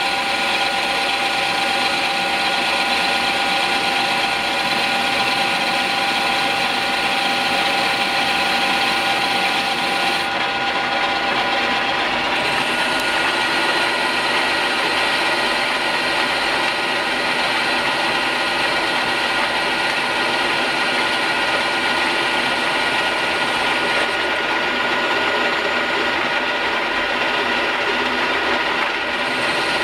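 Converted E1N metal lathe running steadily while turning a workpiece under CNC control: a continuous mechanical whir from the spindle drive and gears, with a few held tones.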